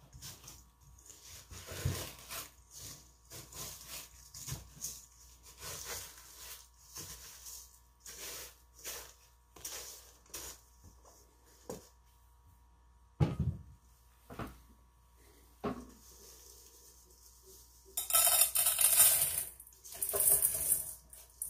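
A rigid plastic spatula scraping freshly refined silver crystal around a stainless steel bowl in many short strokes, with a few sharp knocks against the bowl. Near the end the granular crystal pours and rattles from one steel bowl into another for a few seconds.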